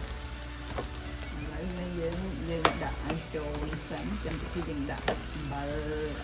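Food stir-frying in a hot pan: a steady sizzle as it is stirred, with two sharp clicks of the utensil against the pan, about two and a half and five seconds in.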